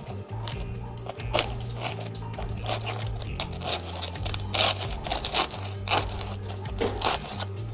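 Fork crunching into and breaking the crispy, flaky puff-pastry crust of a Fray Bentos canned steak and kidney pie: an irregular run of sharp crackles and crunches.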